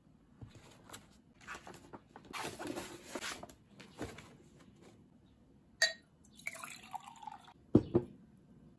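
Paper rustling and sliding as a watercolour pad is handled and opened, then a glass jar of water clinks with a brief ring, the water moves in it, and the jar is set down with two knocks on the wooden desk near the end.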